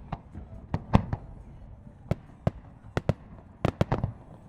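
Aerial firework shells bursting: about a dozen sharp bangs at irregular intervals, coming thick and fast in a cluster near the end.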